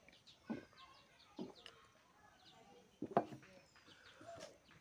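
A man drinking from a steel tumbler and setting it down on a wooden table, with a sharp knock about three seconds in. Small birds chirp repeatedly in the background.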